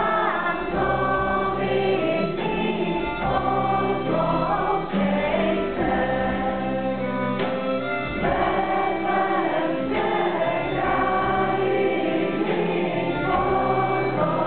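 Live pop-rock song: a boy sings lead into a microphone over electric guitar and a full band, with several voices singing together.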